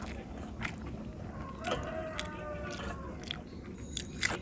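Close-miked eating sounds: wet chewing and smacking of a mouthful of rice and fish curry, with scattered small clicks. The loudest click comes near the end.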